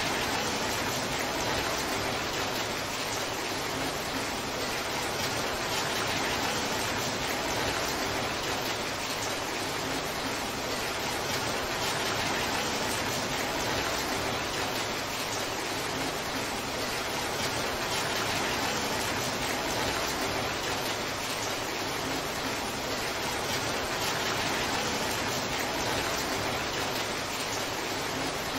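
Heavy rain falling in a steady, even downpour, with no thunder.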